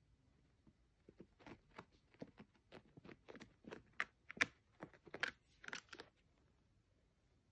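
Irregular scratchy, crunching clicks and scrapes against a white plastic laundry basket. They start about a second in, are loudest around four seconds, and stop about six seconds in.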